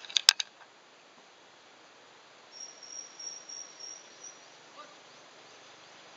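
A quick cluster of sharp clicks right at the start, then a high, steady insect trill with a pulsing level for about two seconds in the middle, over faint hiss.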